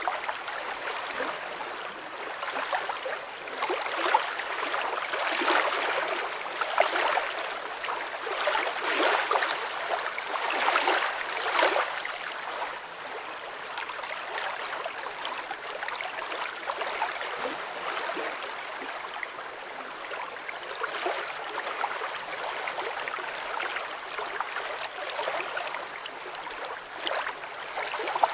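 Gently flowing water: a steady rippling trickle with many small irregular splashes, somewhat busier in the first half.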